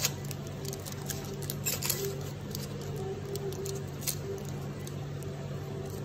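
Chef's knife scraping and prying the dry, papery skin off a red onion held in the hand, making irregular small crackles and clicks, over a steady low hum.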